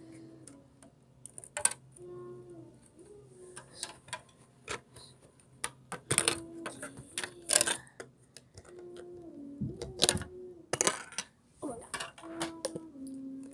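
Plastic Lego bricks clicking and clattering together as they are handled, in irregular bunches of sharp clacks.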